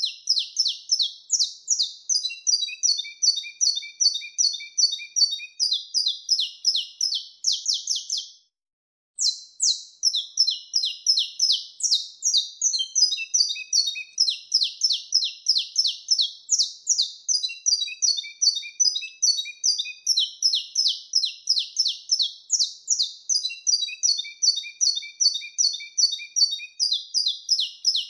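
Saffron finch (canário-da-terra) singing its mateiro-style song: long runs of rapid, sharp, high chips, several a second, with a few lower chirps between. The song breaks off briefly a little over eight seconds in, then resumes.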